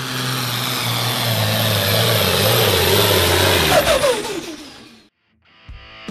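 A pulling vehicle's engine running hard under load, then falling in pitch as it comes off the throttle and fading out about five seconds in. Music starts near the end.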